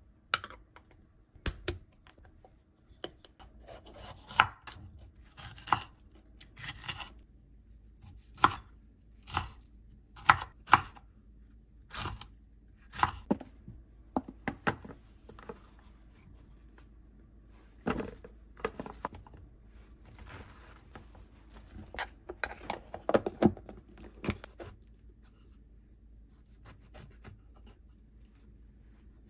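Kitchen knife cutting vegetables on a wooden cutting board. The strokes come as scattered, irregular sharp knocks, with a busier run of them about three quarters of the way through, then a few quieter seconds before the next stroke.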